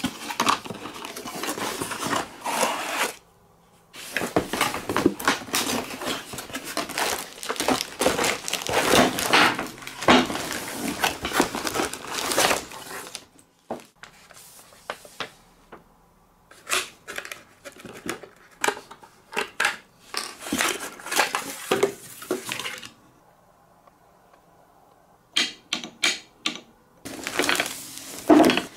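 Unboxing a wooden marble-run toy: the cardboard box and its flaps scraping, then clear plastic bags crinkling and rustling around wooden pieces, with sharp little clicks and knocks. It comes in stretches of handling broken by short pauses.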